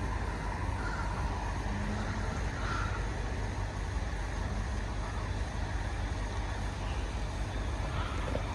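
Steady low rumble of road traffic, with a couple of short bird calls, crow-like caws, in the first few seconds.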